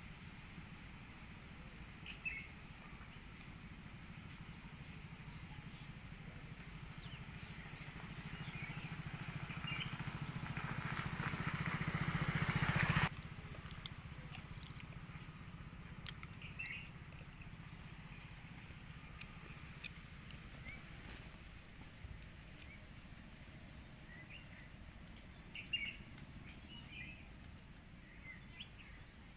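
Outdoor ambience with birds chirping now and then over a steady high-pitched insect drone. About a third of the way in, a rumbling noise swells for some five seconds and then cuts off abruptly.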